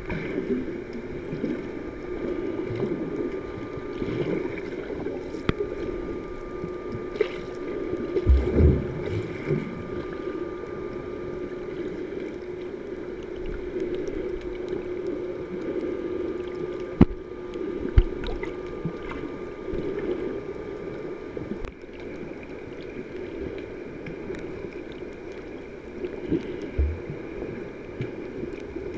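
Muffled underwater sound picked up by a GoPro in its waterproof housing: a steady rush of water with a low hum, a few low surges, and two sharp knocks about a second apart around two-thirds of the way through.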